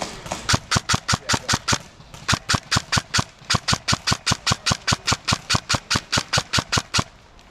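An airsoft gun firing a long string of shots at a steady pace of about six a second. There are two short breaks, and the firing stops about seven seconds in.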